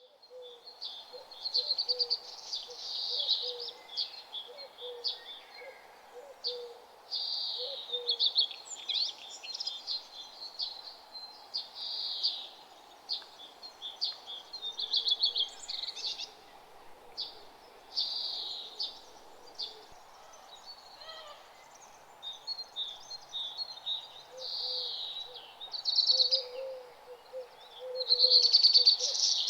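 Songbirds chirping and singing in short repeated phrases with gaps between them, the calls high-pitched and loudest near the end, over a faint steady background noise.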